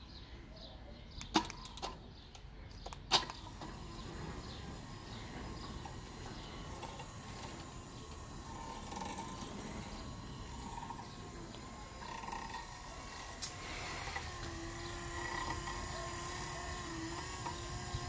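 Cheap remote-controlled sliding-gate opener with a cable drum: two sharp clicks within the first few seconds, then the unit running steadily as it moves the gate, with a faint whine coming in over the last few seconds.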